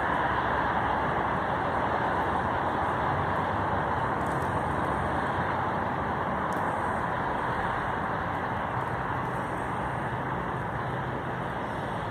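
Stainless-steel passenger cars of VIA Rail's The Canadian rolling past on the rails, making a steady rush of wheel-on-rail noise that eases slightly near the end.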